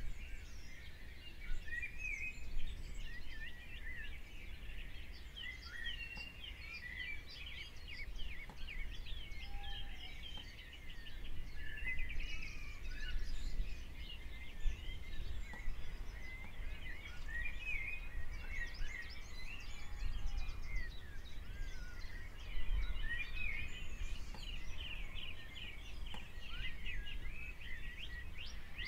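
Small birds chirping and twittering: a dense, continuous run of short high calls with a brief lull about ten seconds in, over a low steady rumble.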